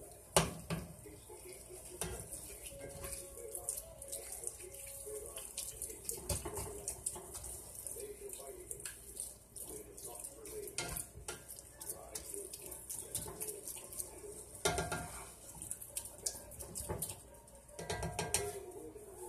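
Ground beef sizzling in a cast-iron skillet while a spatula scrapes and knocks against the pan, stirring it, with louder scraping about 15 and 18 seconds in.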